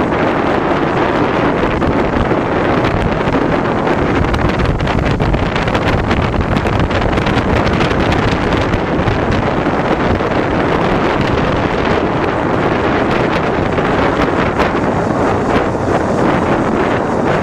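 Steady wind noise buffeting the microphone of a motorcycle under way, with the bike's running and road noise underneath.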